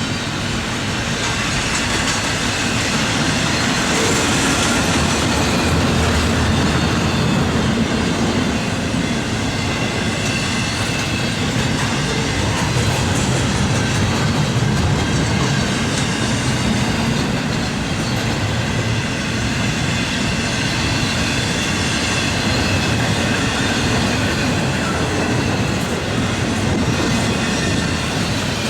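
Double-stack intermodal freight train rolling past at speed: a steady rumble of wheels clacking over the rails, with a faint high ringing of steel wheels on the rail.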